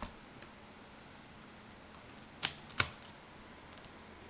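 Plastic relays being pushed into their sockets in a Dodge Ram's integrated power module (fuse box): a faint click at the start, then two sharp plastic clicks about a third of a second apart, the second louder, a little past halfway through.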